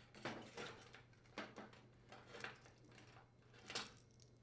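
Faint, scattered clicks and scrapes of pliers twisting the plastic strain relief to free the old power cord from the washer's rear panel, over a low steady hum.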